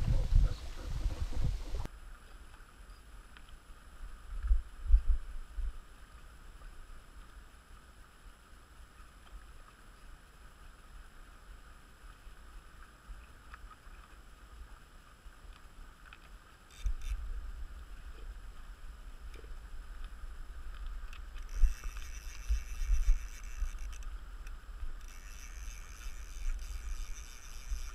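Wind gusting on an action camera's microphone in low rumbles, over a faint steady rush of river water. There is a loud rumble of handling noise in the first two seconds, and the wind is stronger from about two-thirds of the way in.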